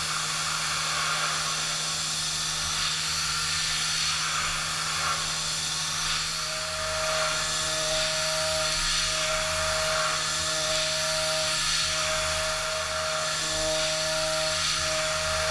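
Tongtai CT-350 five-axis machining center milling P20 mold steel with an 8 mm end mill, the spindle running at 9,460 rpm: a steady hum under a dense hiss. From about six seconds in, a higher tone comes and goes repeatedly as the cutter works through its passes.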